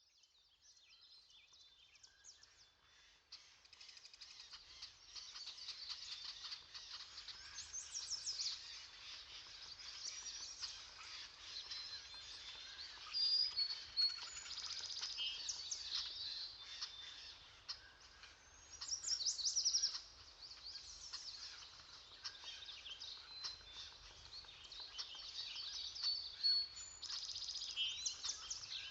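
Many songbirds singing at once, overlapping chirps, whistles and rapid trills, fading in from silence at the start, with a few louder flurries of song.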